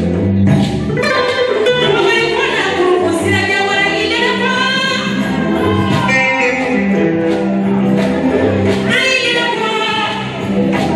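A woman singing into a microphone over amplified backing music with a steady low bass line.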